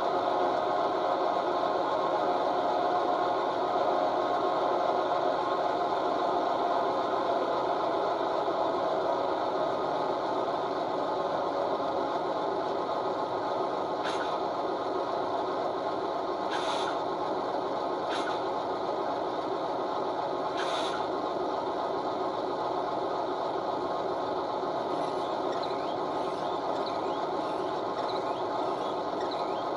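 A DCC sound decoder's recording of a Class 58 diesel locomotive's engine running at idle, played through the model's small speakers. A little past the middle come four short, sharp sounds.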